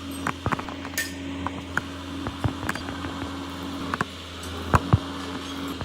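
A steady machine hum with scattered metallic clinks and taps of metal parts or tools, and two sharper knocks close together near the end.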